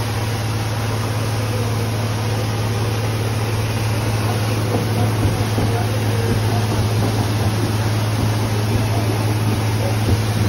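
A high-pressure hose jet gushing into a tarp-lined pool, with the water churning and splashing against an aluminium flood barrier. An engine drones steadily underneath as a low hum.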